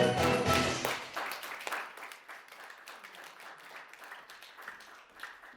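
A song's music stops abruptly about a second in, and audience applause follows, slowly dying down.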